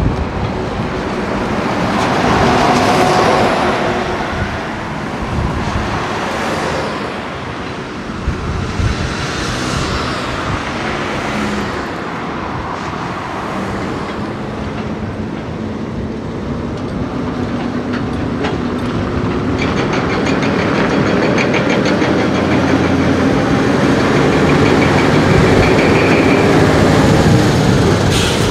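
Heavy truck hauling a trailer of cut steel bridge girders, its diesel engine running as it approaches and passes close by, growing louder over the second half. Wind gusts on the microphone in the first half.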